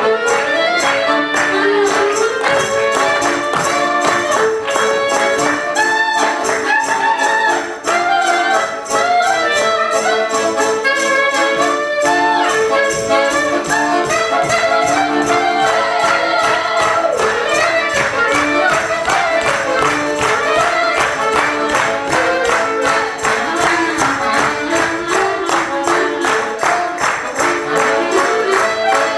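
Clarinet and piano accordion playing a lively folk-style tune together over a steady, even beat.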